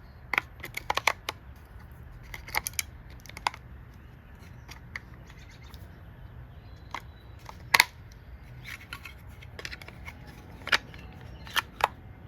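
Irregular sharp plastic clicks and snaps as AA batteries are pressed into the battery holder of an electronic deadbolt's interior unit. The loudest snap comes about eight seconds in.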